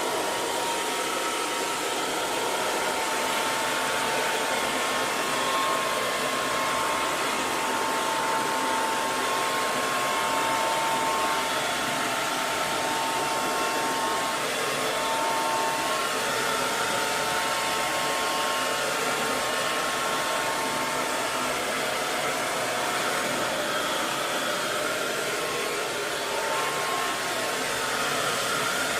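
Hair dryer running steadily: a constant whooshing hiss of blown air over the motor's faint high hum, used as white noise for lulling a baby to sleep.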